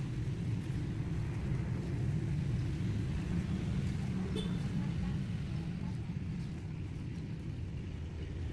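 Steady low outdoor rumble of background noise, with faint rustling of the nylon tent fly as its door panel is rolled up by hand.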